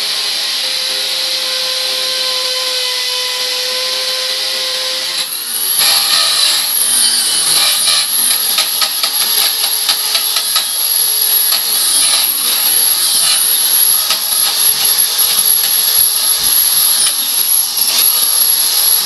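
Corded electric drill boring into the wall: a steady motor whine for about five seconds, then a rougher, gritty grinding with rapid clicks as the bit bites in.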